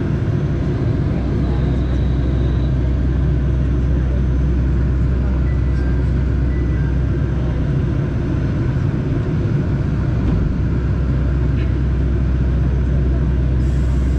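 Train running along the line: a steady low rumble with no change in loudness.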